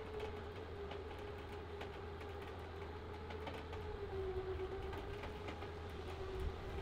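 Electric winch pulling a pickup truck up a trailer ramp under load, its motor giving a steady whine that sags slightly in pitch about four seconds in, with light ticks and clicks over a low hum.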